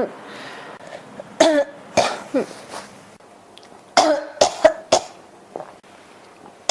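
A person coughing in bouts: a run of three coughs about a second and a half in, then a quicker run of four coughs about four seconds in, with a few faint catches of breath between.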